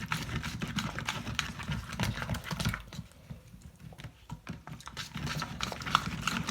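Slime being worked by hand, giving off irregular wet clicks and pops several times a second.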